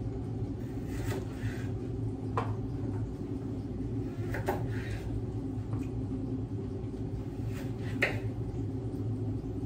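Kitchen knife cutting carrots lengthwise on a wooden cutting board: about five separate knocks of the blade against the board, a second or two apart, over a steady low hum.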